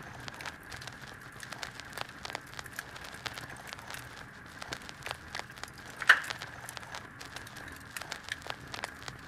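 Irregular crackling and crunching of footsteps through dry grass, twigs and leaves, with one sharp loud crack about six seconds in and a faint steady high whine underneath.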